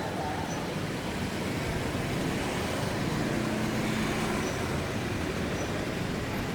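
Hospital-entrance ambience: steady road traffic with vehicles passing, and faint voices. An engine hum swells briefly about halfway through as a vehicle goes by close.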